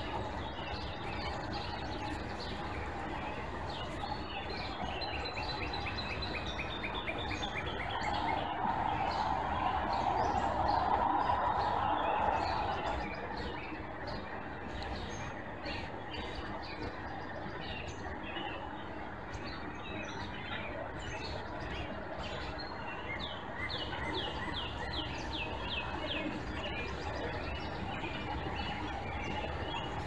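Wild birds singing outdoors: a run of quick high notes a few seconds in, and a series of repeated chirps later on, over a steady background hum. A low rushing noise swells for a few seconds near the middle and fades.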